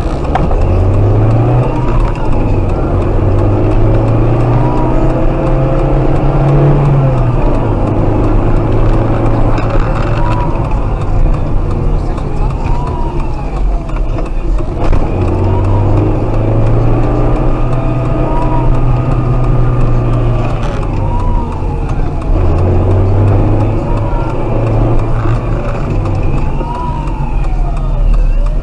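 Car engine heard from inside the cabin, accelerating hard and shifting up through the gears again and again, with a police siren wailing ahead, rising and falling about every two seconds.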